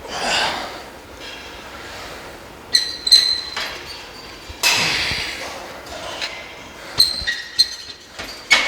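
Heavy, hard exhaling after a set of heavy barbell squats, with sharp metallic clinks that ring briefly from the steel barbell and weight plates, a pair about three seconds in and a cluster near the end.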